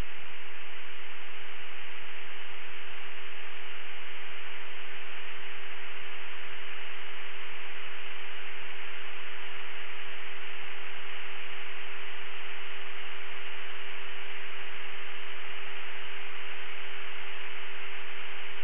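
Steady radio static hiss on the cockpit radio audio, narrow in range like a voice channel, with a constant low hum tone under it: the channel is open but nobody is talking.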